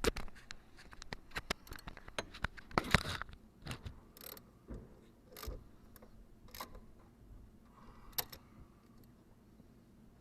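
Metal hand tools clinking and clicking against a fitting while it is tightened: a run of irregular sharp metallic taps and clicks, busiest and loudest about three seconds in, thinning out after about eight seconds.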